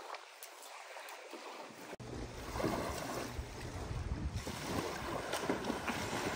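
Small waves lapping on a sandy lake shore, with wind rumbling on the microphone; before that, about two seconds in, only faint, thin beach ambience.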